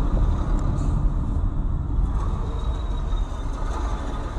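Engine and tyre noise from inside a car moving through city traffic: a steady low rumble.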